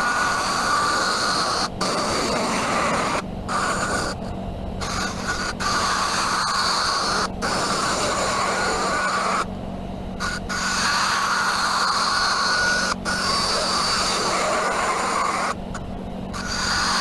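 Pen lathe running with a steady motor hum while a hand-held turning tool cuts into the spinning pen blank, giving a rough scraping noise. The cutting noise breaks off briefly several times as the tool comes off the blank between passes.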